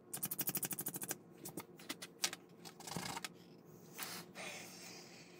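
Loose plastic model-kit sprue pieces clicking and rattling as they are sorted through by hand: a quick run of clicks for about the first second, then scattered clicks and rustling.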